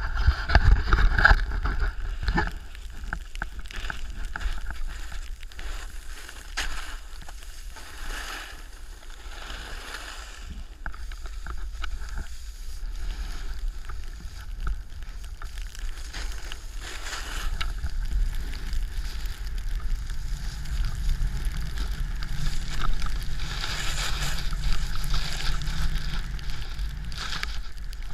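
A snowboard sliding and carving down packed snow, its base and edges scraping, with a steady low rumble of wind on the action camera's microphone.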